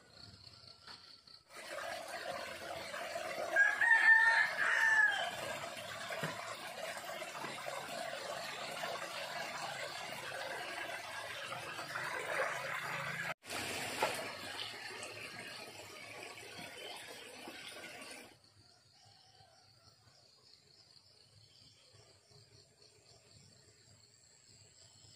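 A rooster crowing once, a rising-then-falling call about four seconds in, over a steady hiss. The hiss breaks off briefly about halfway through and stops abruptly a few seconds later, leaving only faint steady high tones.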